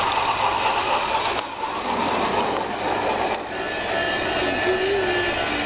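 G-scale model train running steadily along the garden railway track.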